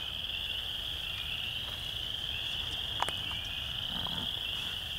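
A chorus of frogs calling steadily, a dense high-pitched trilling, with one short click about three seconds in.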